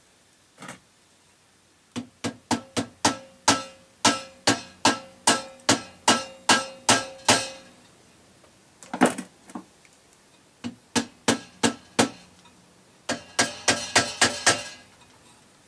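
Hammer tapping on metal, in several runs of sharp taps, the first and longest at about three a second with a faint ring under it, the last run quicker.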